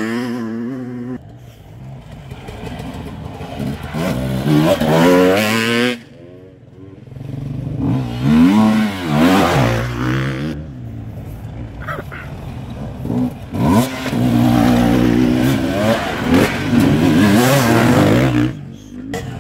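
Enduro dirt bikes revving, the engine pitch rising and falling with the throttle as riders come down the hill and pass close by, loudest around four to six seconds in, around nine seconds, and from about fourteen seconds on.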